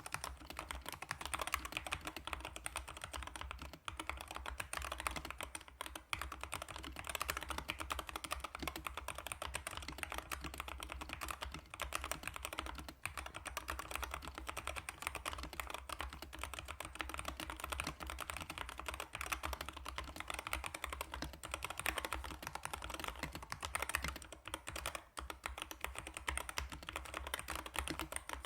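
Continuous fast typing on a Corsair K70 MAX keyboard with fully lubricated magnetic switches, keystrokes following close on one another with only a few brief pauses.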